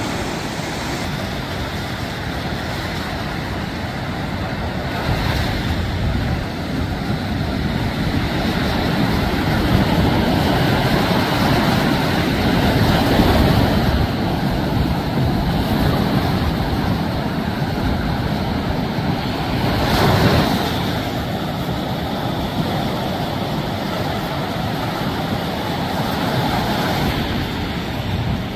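Ocean surf breaking and washing up the beach in a continuous rushing hiss, swelling louder through the middle with a brief surge about two-thirds of the way through.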